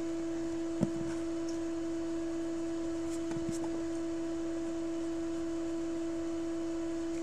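A steady, high-pitched hum held at one pitch throughout, with faint short taps about a second in and again about three and a half seconds in.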